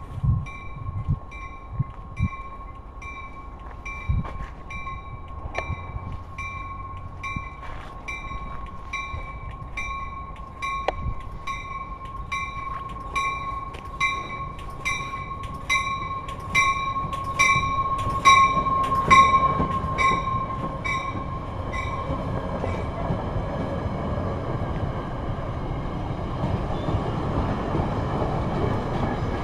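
Bell of an arriving Metra commuter train's cab car, ringing steadily at a little under two strikes a second and growing louder as it nears and passes, then stopping about 22 seconds in. After that comes the rumble of the double-deck coaches rolling past.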